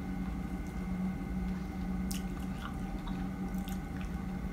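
Wet mouth sounds of fresh strawberries being chewed: soft squishes and a few small clicks, over a steady low hum.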